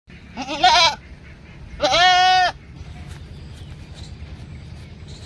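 A goat bleating twice: a short wavering bleat, then a longer, steadier one about a second later.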